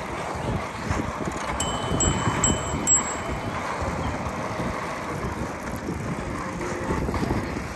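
Wind buffeting the microphone on a moving bicycle, with a quick run of four high, bell-like pings about a second and a half in.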